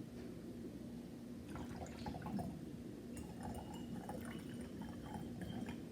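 Vinegar being poured into a glass jar: a faint trickle and splash of liquid that starts about a second and a half in.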